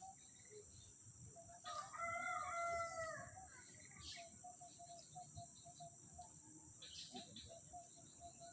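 A rooster crowing once, about two seconds in, over a steady high-pitched insect drone and a soft, repeated short note.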